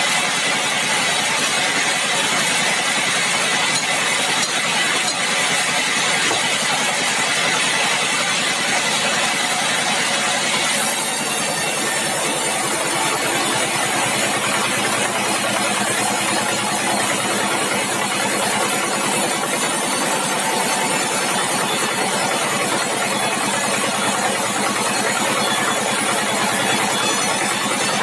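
Sawmill machinery running steadily, an engine driving it. The sound shifts about eleven seconds in.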